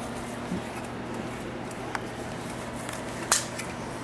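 A steady low room hum with a few small clicks and knocks of kitchen items being handled at the counter, the sharpest and loudest about three seconds in.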